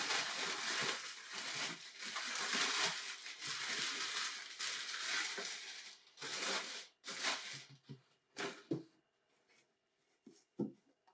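Crumpled brown packing paper rustling and crinkling loudly as hands push through it inside a cardboard shoebox, continuous for about seven seconds. After that come a few shorter crinkles and two light knocks near the end.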